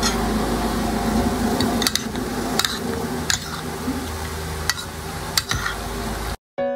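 Metal spoon and fork tossing a seaweed salad on a ceramic plate, clicking against the plate several times over a steady low hum. The sound cuts off sharply near the end.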